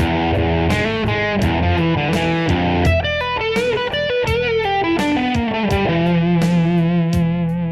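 Distorted electric guitar playing a rock example: chords for the first few seconds, then a lead phrase with string bends and vibrato, ending on a held chord, over a steady beat.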